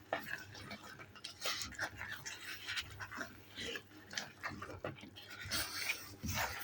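Mashed ripe cooking bananas and black beans being mashed together in a pot: irregular soft squelches and scraping knocks of the masher.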